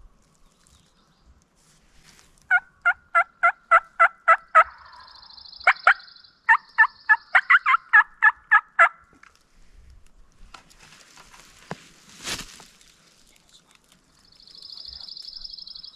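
Wild turkey yelping: two loud runs of about nine evenly spaced notes each, a few seconds apart. A high buzzing trill sounds twice, and there is one sharp knock after the yelping.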